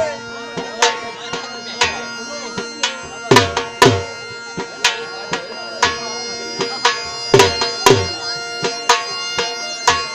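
Saraiki jhumar dance music: a dhol drum beating out the rhythm, with a reed wind instrument holding a long steady note through the first two thirds. The drum strokes come thicker and louder near the end.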